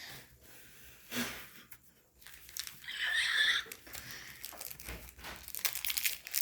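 Crinkling and rustling of plastic trading-card pack wrappers and cards being handled. The crackling is loudest about three seconds in, and comes back as a run of quick crackles near the end.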